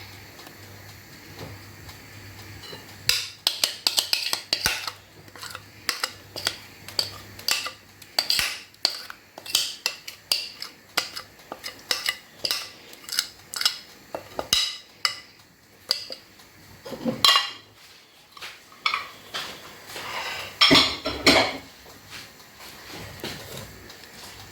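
A kitchen utensil knocking and scraping against a bowl and baking pan, clinking many times at an uneven pace, as thick semolina batter for basbousa is scooped into the pan.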